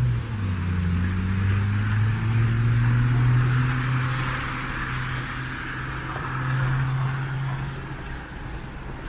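Motor vehicle driving by on the street: a steady low engine hum with tyre noise on the road that swells through the middle and fades near the end.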